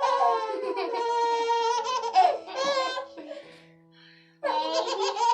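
A baby laughing in long, high-pitched laughs, breaking off for about a second past the middle and then laughing again, with soft background music underneath.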